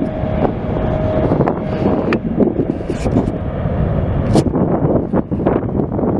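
Wind buffeting the microphone with scattered pops, over a steady low rumble of aircraft engine noise; a faint steady tone stops about two seconds in.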